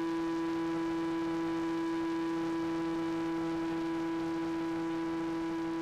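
Model airboat's motor and air propeller running at a constant speed: a steady drone held at one pitch throughout.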